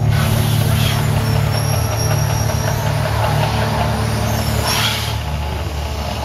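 Artificial volcano show: a deep, steady rumble of the show's sound effects. A rushing whoosh of gas flames comes right at the start and again at about four to five seconds, as fireballs burst up.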